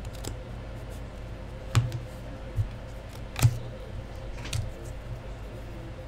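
Four short taps and clicks from sleeved trading cards and a marker being handled on a tabletop, the loudest about two and three and a half seconds in, over a steady low hum.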